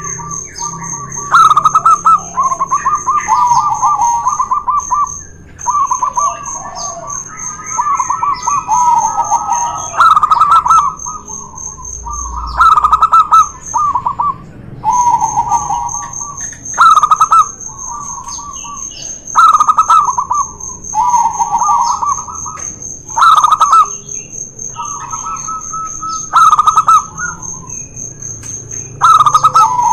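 Zebra doves (perkutut) singing: rhythmic trilled cooing phrases repeated every couple of seconds, loud and close.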